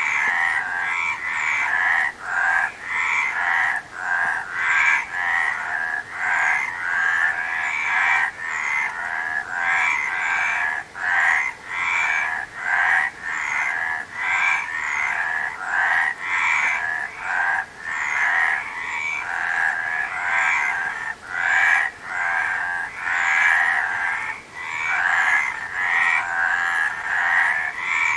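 Frog chorus: many frogs croaking without a break, their calls overlapping in short repeated pulses.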